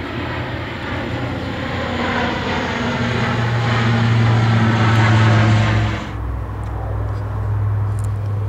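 C-130 Hercules four-engine turboprop transport plane flying low overhead, its propeller and engine noise swelling as it passes. The noise cuts off abruptly about six seconds in, leaving a steady low drone.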